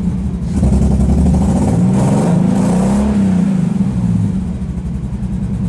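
Nissan 300ZX's 3.0-litre V6 engine being revved in neutral, its pitch rising and falling twice, then settling at a steady fast idle near the end. It is revving with a hesitation that the owner suspects may come from the throttle position sensor, on an engine with an ongoing misfire.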